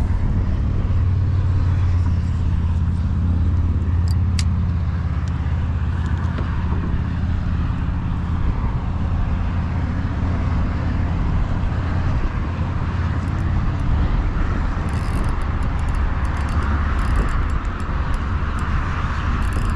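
Kayak's motor drive running steadily with a low hum as the kayak cruises, with wind and water noise around it. A few light clicks come near the end.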